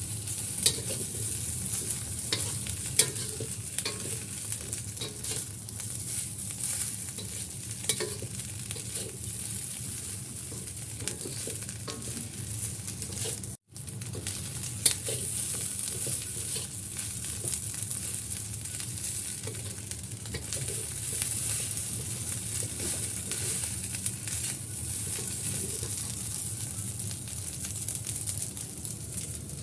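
Fried rice being stir-fried in a hot pan: a steady sizzle, with the spatula scraping and knocking against the pan every few moments. The sound cuts out completely for a split second about halfway through.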